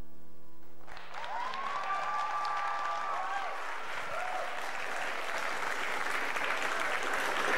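The last held note of a sung piano ballad stops about a second in, and an audience breaks into applause that grows louder, with a drawn-out whoop early in the clapping.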